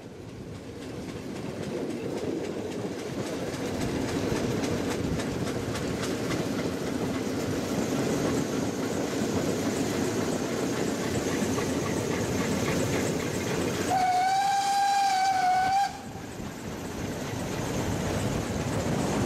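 Steam train running with steady rail noise. About fourteen seconds in, a steam locomotive whistle blows once for about two seconds, a single steady tone that cuts off sharply.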